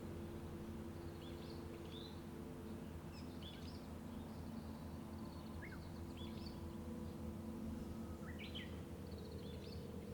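Small songbirds chirping in short, repeated high calls and brief trills, several every second, over a steady low hum of road traffic.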